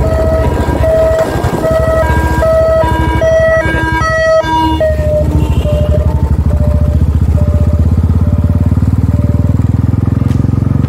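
Motorcycle engine running steadily while riding along a road, its low pulsing rumble growing stronger past the middle. Over it, a repeating pattern of short pitched notes, about two a second, fades out near the end.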